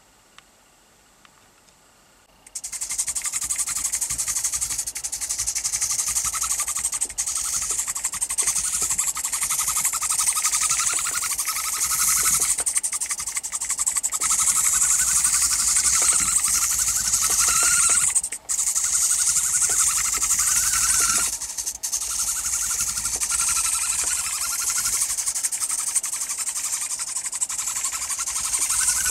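Tiny electric drive motors of an ultra-micro radio-controlled toy duck running, starting a couple of seconds in: a high, buzzy whine whose pitch wavers as the duck is steered, cutting out briefly twice in the middle.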